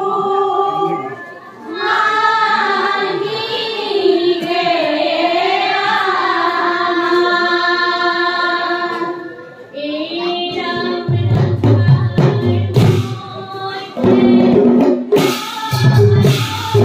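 A group of women singing dihanaam, an Assamese devotional chant, in unison with long held notes. About ten seconds in, the khol drum comes in beneath the singing with sharp percussive strikes.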